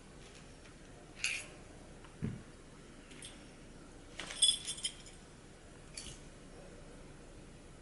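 Small metal parts of an Aqualung Legend Glacia regulator second stage clinking as they are handled and set down on a table. There are a few separate clinks, a soft knock about two seconds in, and a quick cluster of clinks a little past halfway, the loudest of them.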